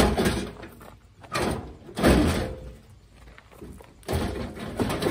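Rusted sheet-steel front fender of a 1981 Camaro being wrenched loose from the body by hand: a series of metal clunks, creaks and scrapes, the sharpest bang right at the start and more bursts about a second and two seconds in and again near the end.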